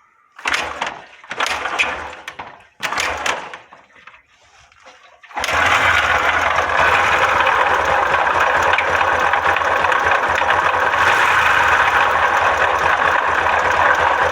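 Yamaha 125 cc single-cylinder motorcycle engine: three short bursts of sound in the first few seconds, then from about five seconds in it runs steadily with a loud mechanical clatter. The clatter comes from play in the worn camshaft bearing.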